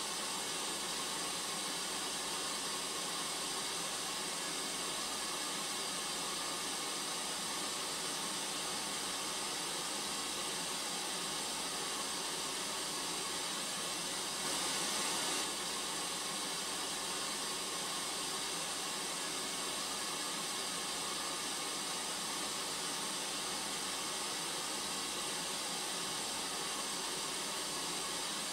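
Steady hiss of noise, like static, unchanging throughout, with a brief swell in the high end about halfway through.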